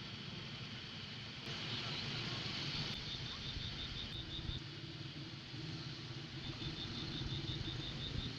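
Faint outdoor ambience: a steady low rumble, with runs of rapid high-pitched insect chirps lasting about a second each, heard a few times.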